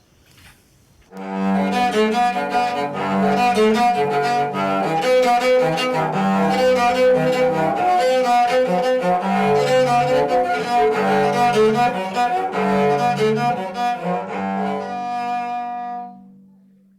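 A recycled cello made from an oil can and discarded wood, with tuning pegs cut from an old meat-tenderizing utensil, played with the bow: a melody of sustained notes that starts about a second in and fades out on a held final note near the end.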